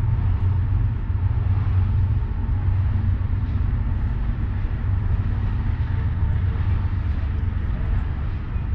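BNSF freight train passing, heard as a steady low rumble.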